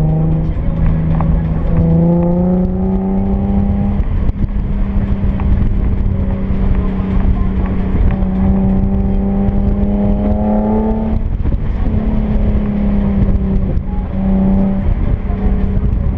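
Infiniti G37xS's V6 with resonated test pipes and an Ark Grip cat-back exhaust, pulling under acceleration on the road. The note climbs, drops at an upshift about four seconds in, climbs again and drops at another shift about eleven seconds in, then starts climbing once more.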